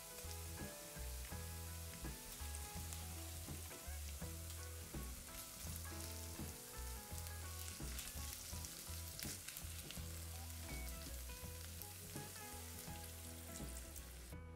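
Onion and grated carrot sizzling steadily in oil in a frying pan while tomato paste is stirred in with a silicone spatula; the sizzle cuts off sharply just before the end. Background music with a steady bass line plays underneath.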